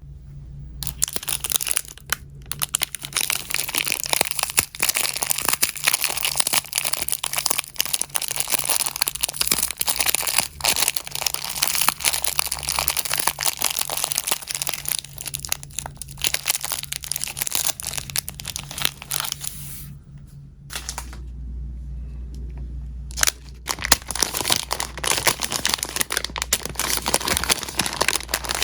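Dense, continuous crinkling and crackling of dry material being handled. It breaks off for about three seconds two-thirds of the way through, then starts again.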